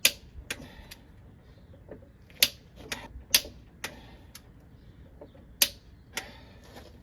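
A click-type torque wrench on a VW TDI diesel's cylinder head bolts, giving about eight sharp, separate clicks at irregular intervals as the head-bolt torque is checked. The engine's cooling system over-pressurizes after driving, and a blown head gasket is suspected.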